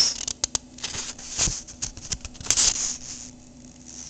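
A small paper booklet being handled, its paper rustling in short, irregular bursts with a few sharp clicks.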